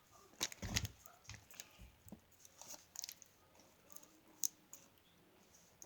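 Handling noise from squishy toys and their packaging: scattered soft taps, rustles and clicks, with a louder cluster about half a second in and a single sharp click about four and a half seconds in.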